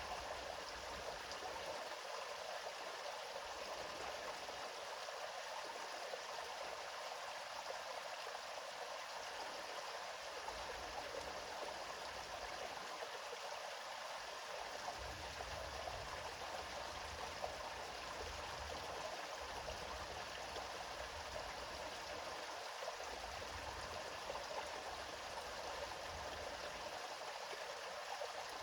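A river or stream flowing steadily, a continuous even rush of water with a faint low rumble that comes and goes underneath.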